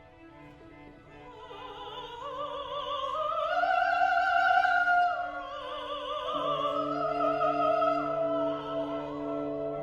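Classical solo voice singing with wide vibrato over a chamber ensemble, the line climbing in pitch and swelling from soft to loud, falling back about five seconds in and rising again, while sustained low notes re-enter partway through.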